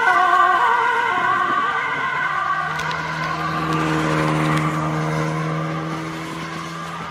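Emergency-vehicle siren wailing with a fast warble, fading away over the first second or two as the fire-service car moves off. From about three seconds in, a steady low vehicle engine drone takes over.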